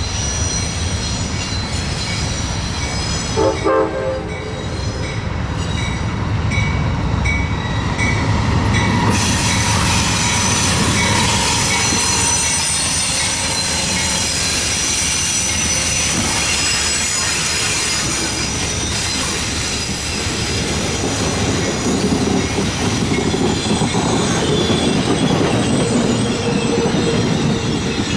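Train running past with steady rumble and clatter of the cars and high-pitched wheel squeal, and a short horn blast about four seconds in.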